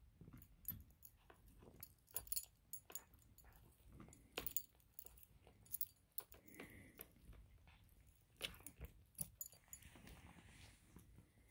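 A Maine Coon cat chewing and crunching on a piece of breaded fried chicken, in faint irregular clicks and crunches. The metal tag on its collar jingles against the buckle as its head moves.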